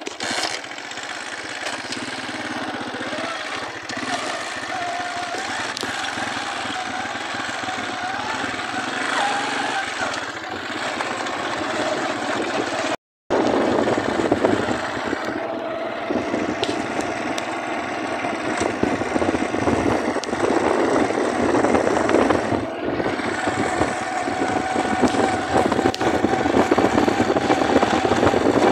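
A small vehicle engine running steadily, with a faint whine that drifts slightly in pitch, under a constant rush of travel noise. The sound cuts out for a moment about halfway through.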